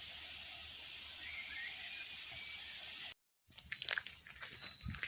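Steady, high-pitched drone of insects in the countryside, with faint bird chirps. About three seconds in the sound cuts out for a moment, then comes back with the drone quieter, scattered clicks and a few more short chirps.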